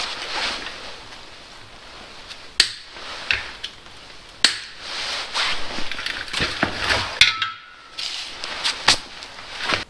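Hand work on a V8's timing chain and sprockets: irregular metallic clicks and clinks from tools and chain parts, with rustling from gloves and clothing. One clink rings briefly about seven seconds in.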